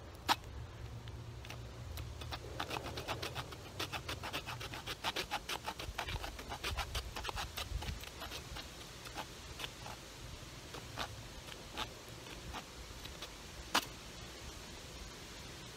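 Short sawback teeth of a FiveJoy survival shovel's blade sawing back and forth across a dead wooden stick to cut a notch. The strokes come fast and close together for several seconds, then slow to scattered single strokes, with a sharp click near the end.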